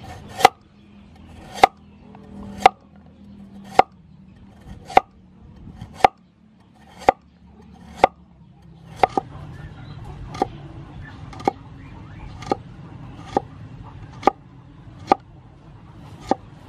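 Cleaver chopping a carrot on a wooden cutting board: a steady run of sharp knocks, about one a second, as the blade comes down through the carrot onto the wood.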